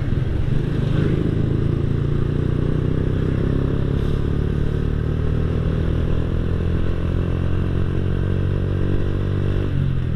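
Honda Astrea Grand's small single-cylinder four-stroke engine running under way through a bored-out Honda Absolute Revo (NF110) muffler on a custom neck, giving a deep, mellow bass exhaust note. The note holds steady while riding, and its pitch dips near the end.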